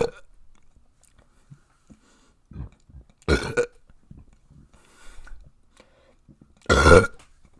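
A person burping loudly. The tail of one burp is heard at the very start, then two full burps come about 3.4 seconds apart, one near the middle and one near the end.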